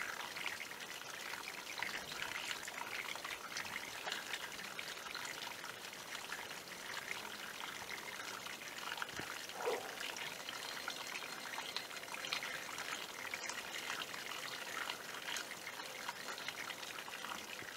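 A small hillside stream trickling and splashing over stones: a steady babble of many small splashes, with one brief louder note about ten seconds in.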